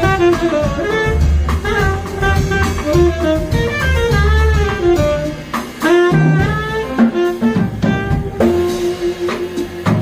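Background jazz music: a melodic lead line over bass and drums.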